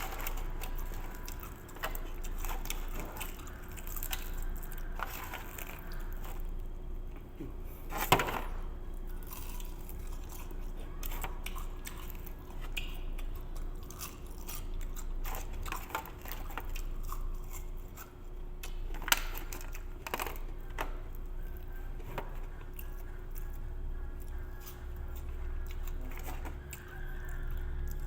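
A person chewing and biting into spicy chicken close to the microphone, with many small clicks and smacks and two louder sharp clicks, about eight seconds in and again near nineteen seconds, over a faint steady hum.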